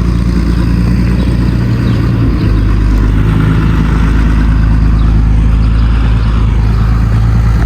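An engine running steadily, its note shifting to a new speed about two and a half seconds in.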